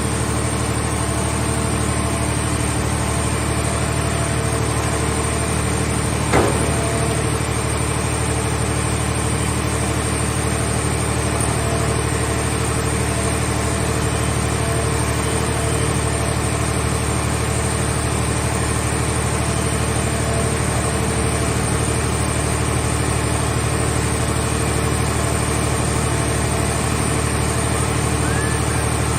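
Scrap car baler's engine and hydraulic power unit running steadily, with one sharp metallic clank about six seconds in.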